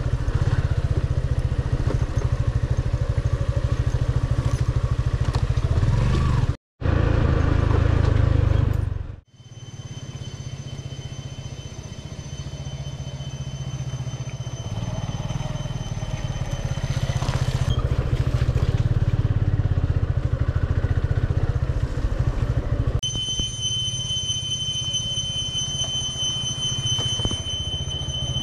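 Motorcycle engine running as the bike is ridden. The sound cuts out abruptly twice about a quarter to a third of the way in, then comes back quieter and slowly builds up again. A steady high-pitched tone sounds over it in parts of the second half.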